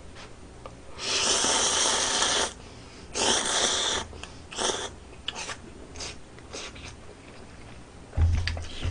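Ramen noodles from budae-jjigae being slurped in two loud, hissing slurps: a long one about a second in, then a shorter one. Scattered short smacks of chewing follow.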